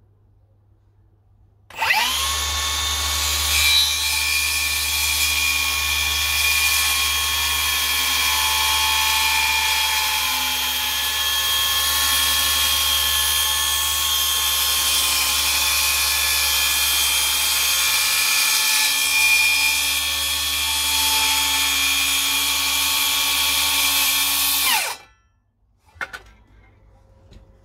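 Milwaukee battery-powered circular saw cutting through a length of timber. The motor starts suddenly about two seconds in and runs with a steady whine through one long cut, then spins down with falling pitch near the end, followed by a single click.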